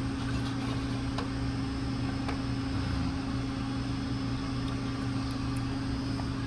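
Steady low machine hum with two constant tones, like a fan or appliance motor, with a few faint clicks over it.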